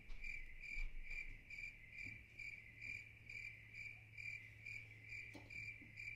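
Crickets chirping in a steady, even rhythm, about two to three chirps a second. This is the stock awkward-silence sound effect laid over a frozen pause.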